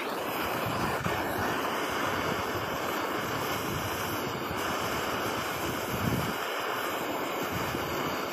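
Handheld gas torch burning with a steady roaring hiss as its flame melts silver in a small dish for casting.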